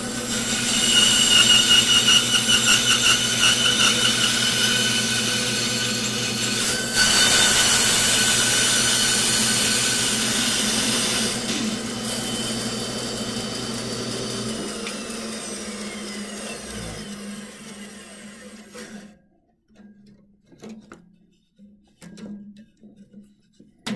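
Bandsaw running, its blade rasping through a thick wooden block for the first half or so, with a brief break in the cut about seven seconds in. The motor is then switched off and the saw coasts down to silence a little before the end. It is shut off so the blade can be backed out of the kerf without being pulled off its wheels. A few light knocks of the block being handled follow.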